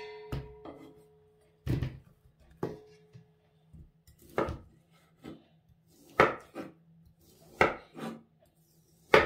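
Kitchen knife cutting partly frozen chicken breast into chunks on a wooden cutting board: irregular sharp knocks of the blade hitting the board through the hard meat, about one a second. A short metallic ring follows one strike near the start.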